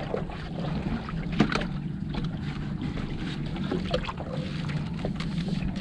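A small boat's engine running steadily, with a sharp knock about one and a half seconds in and a few lighter knocks.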